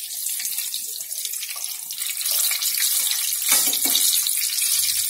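Gram-flour-battered green chillies deep-frying in hot oil: a steady crackling sizzle, with a short knock about three and a half seconds in as they are turned in the kadai.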